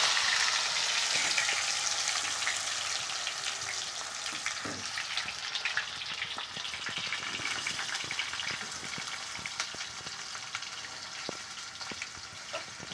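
Whole boiled potatoes frying in hot oil in a kadhai: a loud sizzle that slowly dies down as the first burst of steam passes, dotted with crackling pops, while a ladle turns the potatoes.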